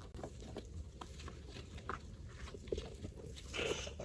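Faint handling sounds of a young racing pigeon held in the hands: soft feather rustling and scattered light clicks, with a slightly louder rustle near the end.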